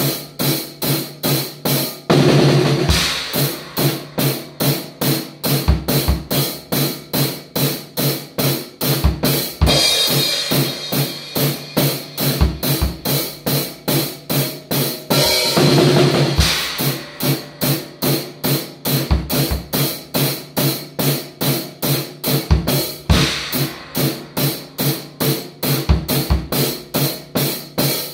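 Drum kit played in a steady rock beat, about four hits a second, with bass drum and snare, and cymbal crashes every several seconds.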